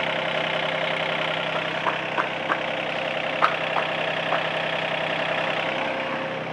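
A diesel engine idling steadily, with several short, light clicks or knocks over it in the middle.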